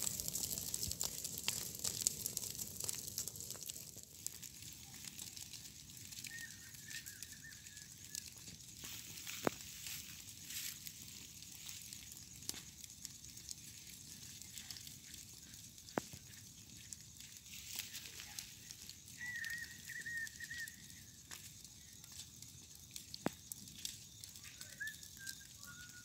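Grass and scrub fire crackling faintly over a steady hiss, with scattered sharp pops. A faint high wavering whistle comes in twice, around a quarter of the way in and again past the middle.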